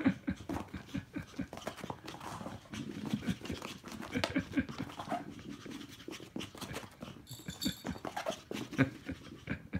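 Chihuahua puppy running about in rough play, panting, with many quick irregular taps and rustles as it scrabbles over carpet tiles.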